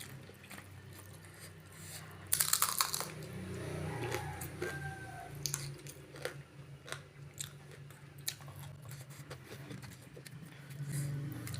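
Close-miked mukbang eating: a person biting and chewing raw lalapan vegetables, with wet clicks and crunches and one louder crunch of about half a second about two seconds in. A steady low hum runs underneath.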